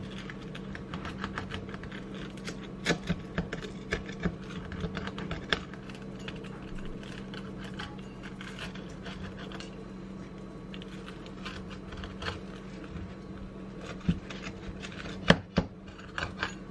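Pizza cutter wheel rolling back and forth through a toasted tortilla quesadilla on a plate: irregular clicks and scraping as the blade rides over the plate, with a few sharper clacks, the loudest near the end. A steady low hum sits underneath.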